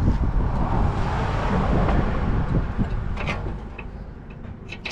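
A vehicle passing by: a rumbling rush of noise that swells and then fades away over a few seconds, with a couple of light metallic clicks near the end.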